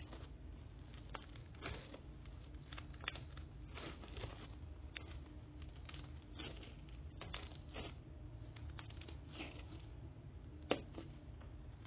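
Hands squishing and poking slime, making irregular soft clicks and little wet pops, with one sharper pop near the end.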